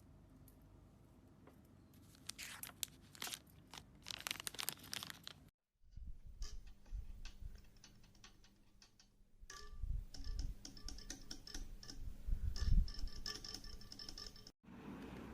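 Mechanical keyboard keys being pressed and released in irregular runs of clicks and clacks, with dull low thuds among them. The sound breaks off briefly about five and a half seconds in, then the typing carries on.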